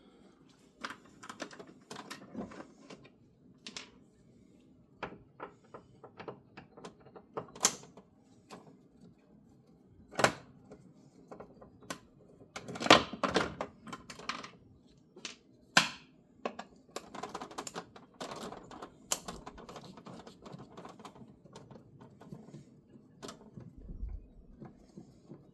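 Irregular clicks and clacks of screws being backed out of a pickup's plastic center-console cup holder tray, with a few louder knocks against the plastic.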